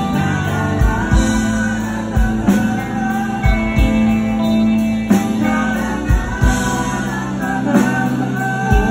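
Live rock band in an instrumental break: a lead electric guitar solo with held and bending notes over bass and drums.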